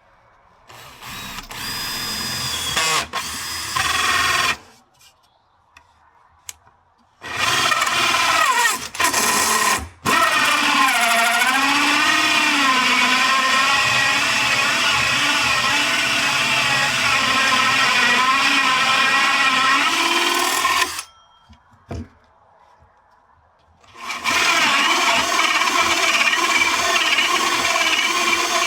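Power drill running in four bursts, the longest about ten seconds, its motor whine sagging and recovering in pitch under load as it works the wood.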